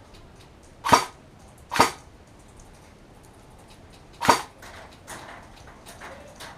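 Three single airsoft gun shots, sharp pops: two about a second apart, then a third about two and a half seconds later.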